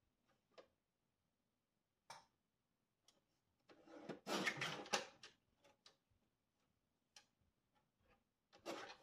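Paper trimmer cutting card: a click about two seconds in, then a scraping cut lasting just over a second, and a shorter one near the end.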